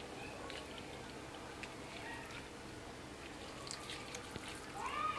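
Faint handling sounds of sliced boiled beef tongue and a wooden cutting board, with scattered light taps. Near the end comes a short squeak that rises and then falls in pitch.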